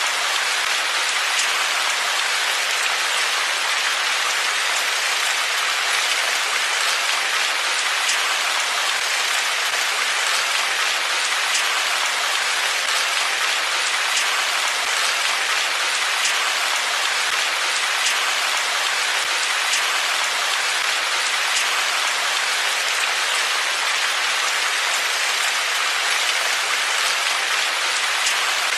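Steady rain falling on a surface: a dense, even hiss with faint drop ticks scattered through it.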